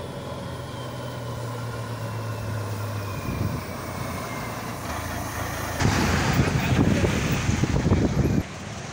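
Heavy cargo truck's diesel engine running as it drives across the bridge, a steady low hum at first. From about six seconds in there is a loud rush of close passing traffic noise, which cuts off suddenly near the end.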